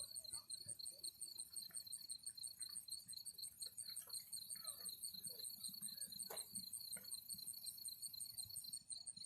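Crickets chirping in a steady, rapid, evenly pulsed trill, with a faint knock a little past the middle.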